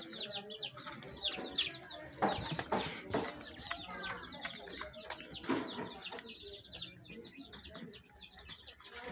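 Caged birds chirping over and over, many short high-pitched calls that fall in pitch, busiest in the first half. A few sharp knocks are heard between about two and six seconds in.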